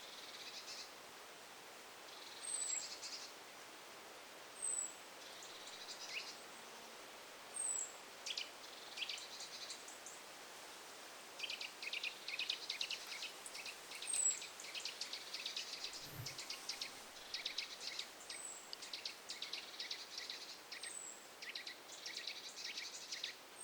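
Wild songbird song: a thin, very high, falling note repeated every few seconds, with short chattering phrases that become a busy, continuous twittering from about halfway through. The singer is a species the recordist does not recognise.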